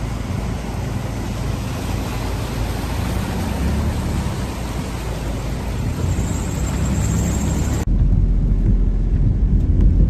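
Steady noise of heavy rain and vehicles moving through floodwater on a road. About eight seconds in it cuts abruptly to a deep low rumble.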